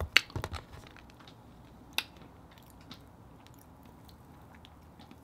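Close-miked handling of lemon wedges: a few quick taps and clicks as wedges are picked off a plastic plate, a single sharp click about two seconds in, then faint squishing as the lemon is squeezed over the oysters.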